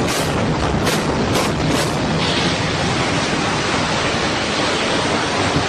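Explosive demolition of a concrete high-rise: a quick string of sharp charge bangs, about two a second, through the first two seconds, then a steady heavy rushing rumble as the building collapses into its dust cloud.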